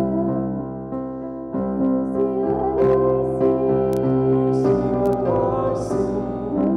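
Slow worship song from a small band: electric keyboards holding sustained chords while singers sing over them, a few sung 's' sounds hissing through.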